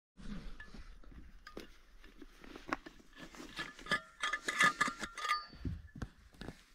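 Clinking and knocking of small hard objects being handled, with short ringing clinks that are densest and loudest between about four and five seconds in.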